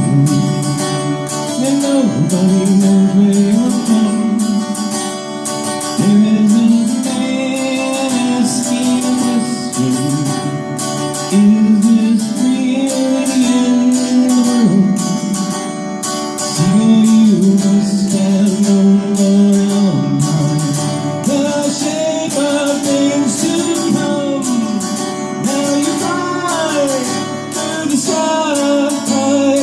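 A song sung to acoustic guitar: one voice singing long held notes over the guitar's strummed and picked chords.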